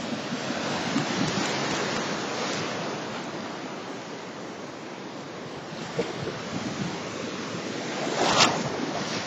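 Small Lake Huron surf breaking and washing right at the microphone, a continuous rush of water with wind buffeting the mic. A louder surge comes near the end.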